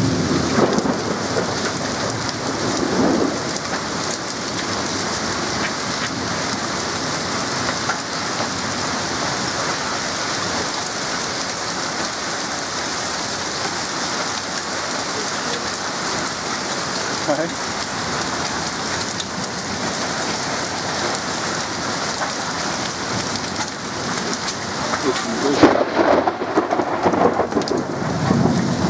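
A heavy rain and hail storm gives a steady, dense hiss of rain and hailstones pelting the lawn, path and roof. Louder low rumbles come near the start and again near the end.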